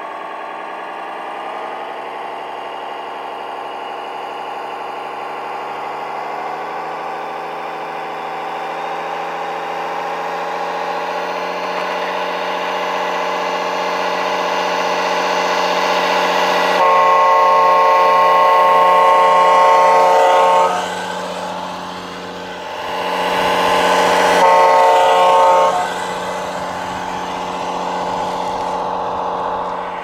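Truck engine sound from a scale RC truck's sound module, running steadily and slowly rising in pitch, with two air-horn blasts: a long one of about four seconds past the halfway point and a shorter one a few seconds later.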